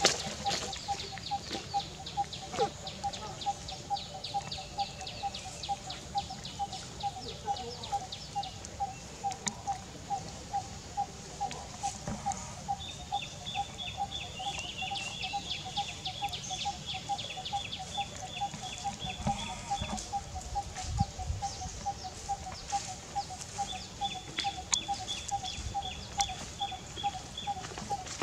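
Birds calling: one repeats a short mid-pitched note about three times a second throughout, over rapid high trills in the first half and a long, steady high tone twice later on.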